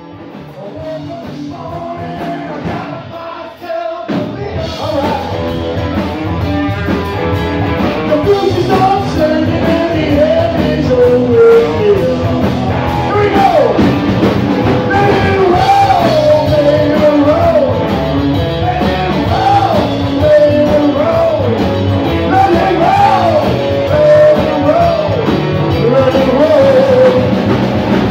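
Rock song with a lead singer, fading in over the first few seconds and at full band from about four seconds in.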